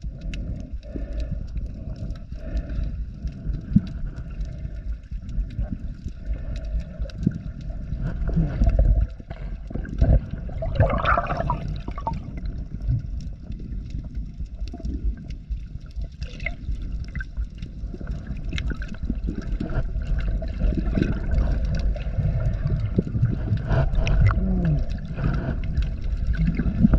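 Underwater water noise heard through a chest-mounted action camera's waterproof housing: steady low sloshing and gurgling from a swimming snorkeler, with scattered knocks.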